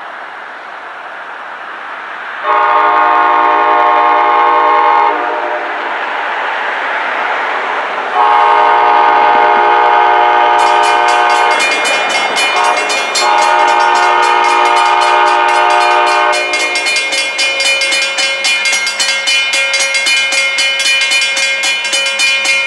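Approaching train's locomotive air horn sounding three long blasts, the second and third close together. Rapid high clicking and steady rail noise build from the middle onward and carry on after the horn stops, as the train draws near.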